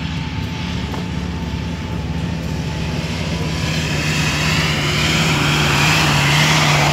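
Off-road 4x4's engine running with a steady drone, growing louder toward the end.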